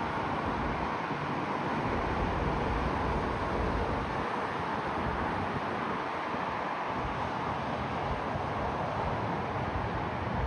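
Steady road noise of a car driving, an even rushing sound with a low rumble underneath.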